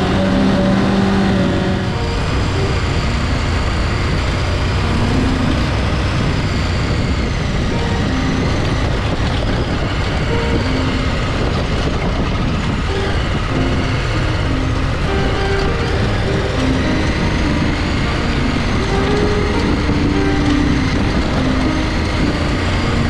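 Adventure motorcycle engine running steadily while riding a gravel dirt track, with heavy wind rush over the camera microphone and tyre noise on gravel.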